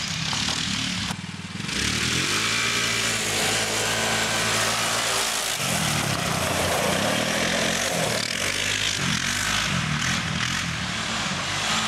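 Kawasaki Brute Force 650 ATV's V-twin engine, freshly rebuilt, running under way as the quad is ridden. The revs climb about two seconds in, hold steady for a few seconds, then rise and fall several times in the second half.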